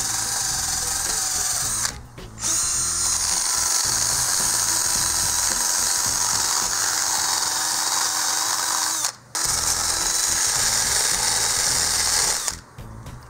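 Power drill spinning an abrasive pad to scour saildrive parts clean. It runs steadily with a high whine, stops briefly twice, about 2 and 9 seconds in, and cuts off near the end.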